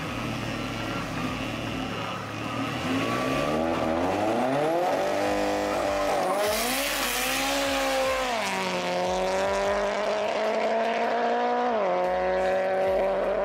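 Two race cars, a BMW E30 with a swapped-in M54B30 straight-six and an Audi TT, launching off a drag-strip start line. The engines rev up, and tyre noise bursts at the launch about halfway through. Then they accelerate hard away, and the engine pitch drops at each gearshift, twice.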